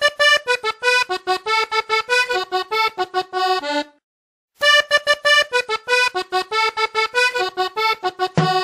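Solo accordion playing a quick, detached cumbia melody as the song's intro, the same phrase played twice with a short break between. Drums come in near the end.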